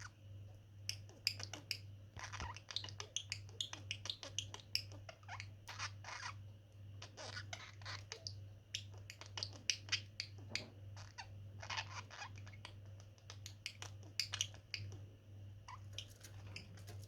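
A pair of budgerigars chattering with a quick, irregular run of soft clicks and short chirps, the sounds budgies make while beak-touching.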